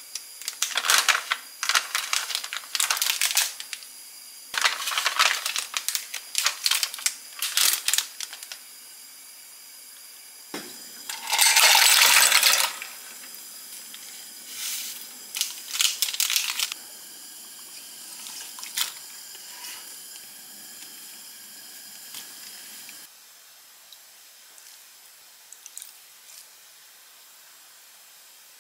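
Clam kalguksu being cooked in a saucepan: packet handling and small hard items clinking, with a loud hiss for about a second and a half near the middle and more clinks after it. Near the end, only a few faint ticks.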